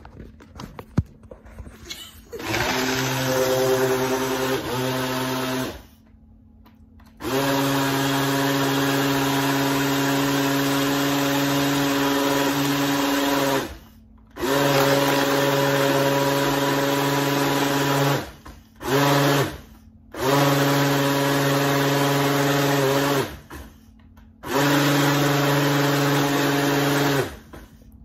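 Countertop blender blending a strawberry smoothie, its motor running in about six bursts of one to six seconds with short stops between. A few clicks come just before the first burst.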